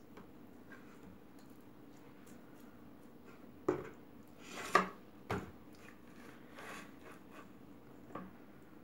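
Kitchen knife slicing raw chicken breast on a plastic cutting board, with three sharp knocks of the blade against the board around the middle and a fainter one near the end, over a faint steady hum.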